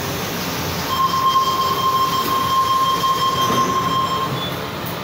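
Tangara train's door-closing warning: a steady high electronic tone lasting about three seconds while the doors slide shut, over the running noise of the stationary carriage.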